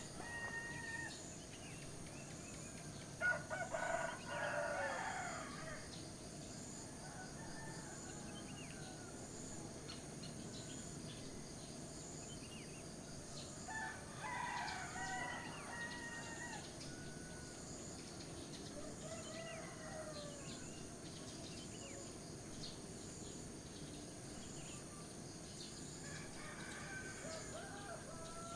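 Roosters crowing several times, the loudest call a few seconds in, over a steady, evenly pulsing high insect trill and a low background hiss.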